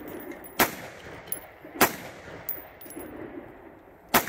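Three single shots from a Ruger AR-15 semi-automatic rifle fired in the open, each a sharp crack with a short ring-out. The first two come about a second apart; the third follows after a pause of more than two seconds, near the end.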